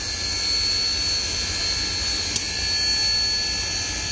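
Union Pacific Big Boy 4014 steam locomotive standing with its auxiliaries running: a steady steam hiss with a thin high whine over it. Two sharp clicks break in, one at the very start and one a little past halfway.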